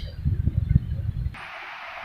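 Low, irregular rumbling and knocking of a phone microphone being handled, then a steady hiss that starts abruptly about two-thirds of the way in.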